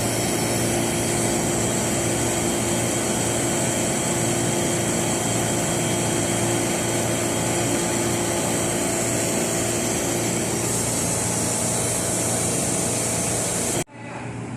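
Newly installed cold-room refrigeration compressor running: a steady machine hum with a hiss over it, cutting off abruptly near the end.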